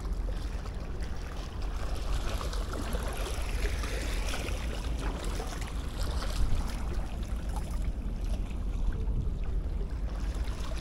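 Steady wind rumble on the microphone over water lapping at the shore.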